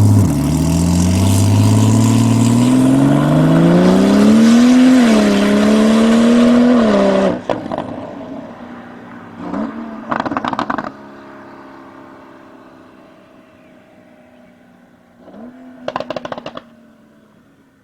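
Tuned Porsche 991 Turbo S twin-turbo flat-six accelerating hard, its pitch rising, with a brief drop at a gear change about five seconds in, then lifting off suddenly about seven seconds in. The engine then runs quieter and fades, with two bursts of rapid exhaust crackles and pops, each after a short throttle blip, about ten and sixteen seconds in.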